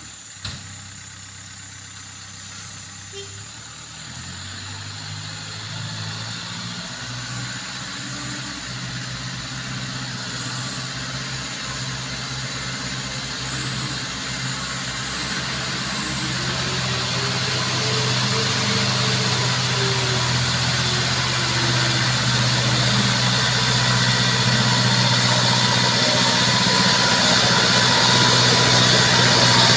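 Farm tractor towing a loaded oil-palm fruit truck up a muddy slope, its engine running at a steady pitch under load and growing steadily louder as it approaches.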